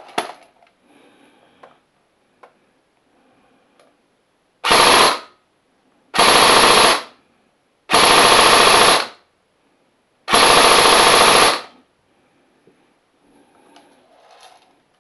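APS ASR102 M4 electric-blowback airsoft rifle firing on full auto: four bursts, each lasting from about half a second to just over a second, a second or two apart.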